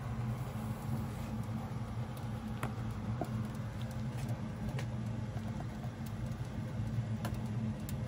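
A steady low hum, with a few faint clicks and rubbing from the handheld detector being handled.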